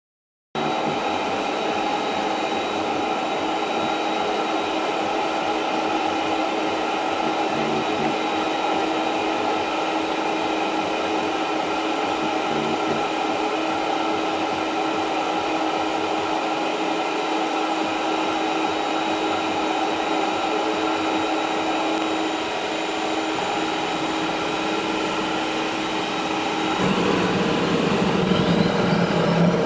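Small jet engine test rig running: a steady, loud whine and rush of air with several steady tones. About 27 s in it grows louder, with a deeper rumble and a rising whistle.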